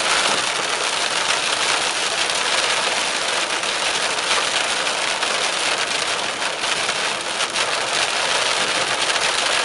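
Heavy rain on the windshield and roof of a moving car, heard from inside the cabin as a steady hiss with scattered drop ticks, mixed with tyres on the wet road.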